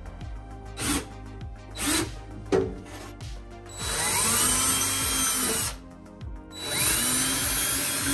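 DeWalt cordless drill boring holes into drywall: two runs of about two seconds each, starting about four seconds in, the motor's pitch rising as each one starts. Background music with a steady beat plays underneath.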